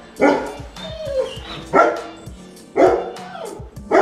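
A dog barking behind a baby gate: four loud barks roughly a second apart.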